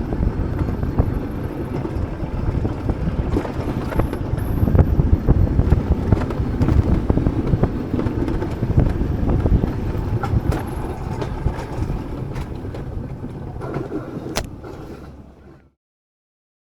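Alpine coaster sled rolling down its track: a steady rumble of the wheels on the rail with small knocks and clatter, fading out to silence near the end.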